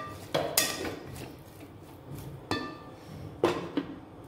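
A steel spatula clinks against a frying pan a few times. Near the end, a glass lid is set down on the pan with two quick clinks.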